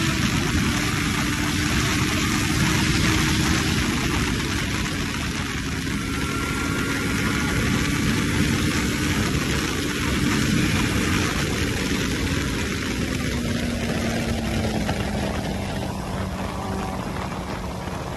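Kawasaki ZX-14R inline-four sport bike at riding speed, heard from the rider's seat: steady wind rush over the microphone with the engine's hum underneath. The engine note falls in pitch over the last few seconds.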